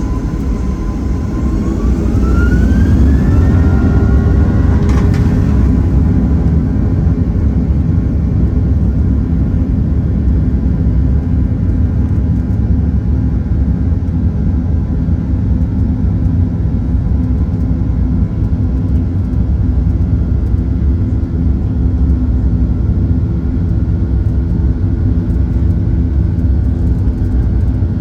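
Boeing 737-800's CFM56-7B turbofan engines spooling up to takeoff thrust, heard from inside the cabin: a whine rises in pitch over the first few seconds, then settles into a steady loud roar with a buzzing drone through the takeoff roll.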